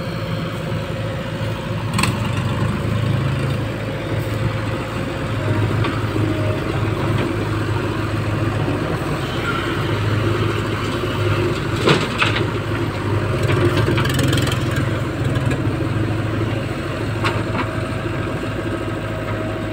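JCB 3DX backhoe loader's diesel engine running under working load while the backhoe digs soil. Its note swells and eases in stretches as the hydraulics work, with a few sharp knocks, the loudest about twelve seconds in.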